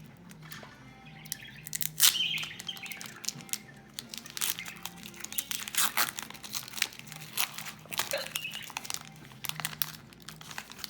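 A trading-card pack wrapper being torn open and crinkled, with a loud tear about two seconds in and dense crackling after it.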